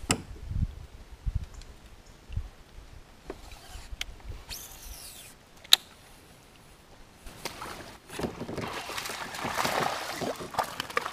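Fishing gear being handled in a plastic kayak: scattered low knocks and bumps, a single sharp click near the middle, then a building hiss in the last few seconds as the rod is brought back to cast.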